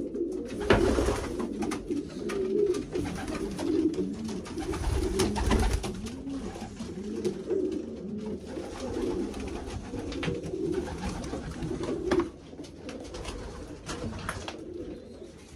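Many racing pigeons cooing at once in a loft, their low rolling coos overlapping continuously, with scattered sharp clicks and knocks among them. The cooing grows quieter for the last few seconds.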